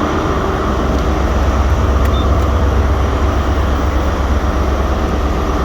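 Stannah station passenger lift running with a loud, steady, low droning hum and a fainter steady higher tone over it: the horrible noise the lift is making.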